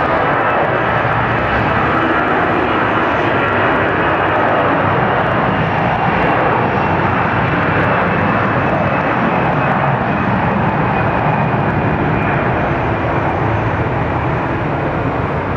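Airbus A320's twin jet engines at takeoff power during the takeoff roll: a loud, steady roar with a faint high whine, easing slightly near the end as the aircraft rotates.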